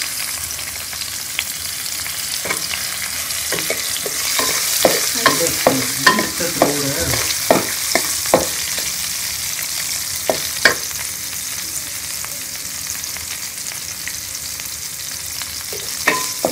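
Garlic, ginger, green chillies and fenugreek seeds sizzling in ghee in an aluminium kadai over low heat. A wooden spatula scrapes and knocks against the pan, in a string of sharp clicks from about two to eleven seconds in.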